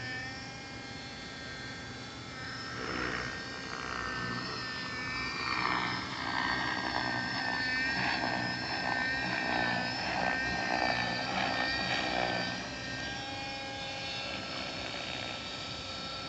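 Thunder Tiger Raptor X50 nitro RC helicopter flying overhead: the steady whine of its glow engine and rotor, shifting in pitch as it manoeuvres and louder in the middle.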